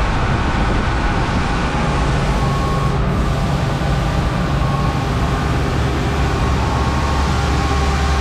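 Henschel FM1200 high intensity mixer running empty, its mixing tool spinning fast in the stainless steel bowl: a steady, loud whir with a low hum. The low rumble grows stronger near the end.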